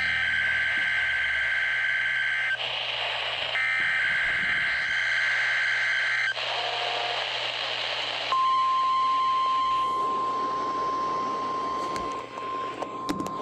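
NOAA Weather Radio alert signal received over the air with radio hiss. Repeated Specific Area Message Encoding data bursts, a shrill two-tone digital warble, alternate with short gaps of static. About eight seconds in, the steady single-pitch 1050 Hz weather radio alert tone starts and holds.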